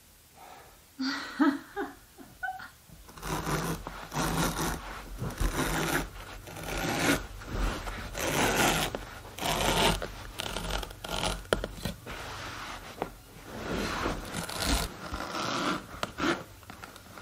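Carpet tucker scraping and rubbing as it forces the edge of a wool carpet into the gap under a wooden baseboard, in repeated strokes about once a second.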